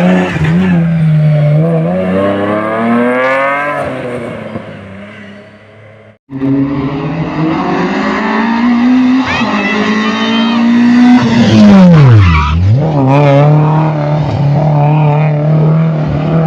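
Race car engines at a road slalom. One accelerates away with its pitch climbing, then fades out. After a sudden cut about six seconds in, another car's engine runs at high revs, its pitch dropping sharply and rising again near the middle of the second part, with some tire squeal.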